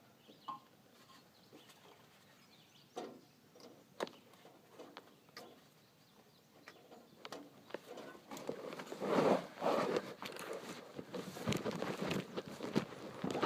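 Scattered knocks and clatter, getting busier and louder about eight seconds in.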